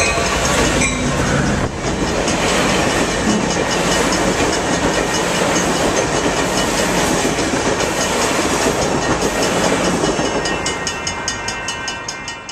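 Amtrak Surfliner passenger train passing close by with the steady rush and rumble of its cars. Near the end the wheels' clickety-clack over the rail joints comes through as an even rhythm while the train fades away.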